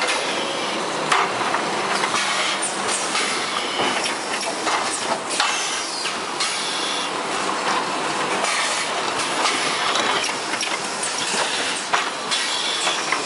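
Automatic carton packaging machinery for welding-wire spools running: a steady mechanical clatter with frequent irregular clicks and knocks from conveyor rollers, guides and moving parts over a constant hiss-like noise.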